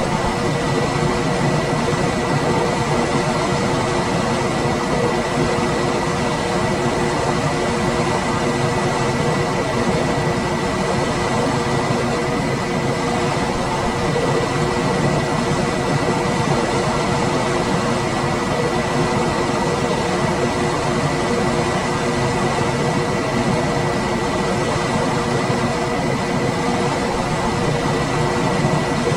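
Room air conditioner running steadily: an even rush of fan and airflow noise with faint constant tones over it, one high and a couple lower, and no change throughout.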